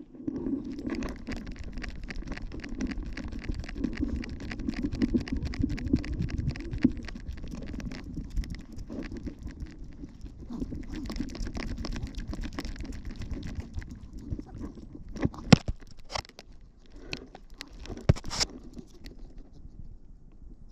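Rubbing and rattling handling noise from a camera strapped to a Yorkshire terrier's harness as the dog trots on a lead, with a rapid patter of movement. The noise eases off after about two-thirds of the way in, when two sharp knocks stand out.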